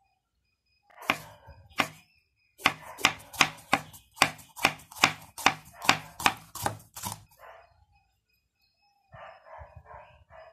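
Kitchen knife chopping a red bell pepper on a round wooden chopping board, the blade knocking on the wood. Two single strokes come first, then a quick even run of about fifteen strokes at three or four a second.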